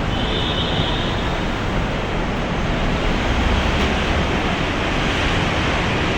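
A steady, even rushing noise with no distinct events, like traffic and wind on a walking phone's microphone.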